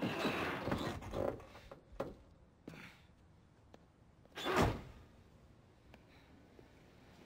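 An old car's door being worked: clatter and a few knocks, then one loud slam about four and a half seconds in.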